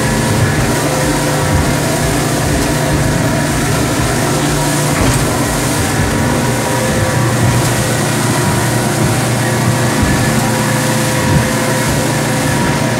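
Fishing boat's engine running steadily under way, a constant drone with a dense rush of noise over it.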